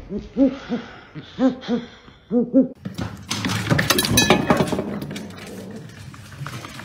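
A run of short pitched calls, several in quick pairs. About three seconds in, a dog lunges at a stainless-steel food bowl: the metal bowl clatters and scrapes against its wooden stand and the wood floor, loudest for about two seconds, then quieter clattering.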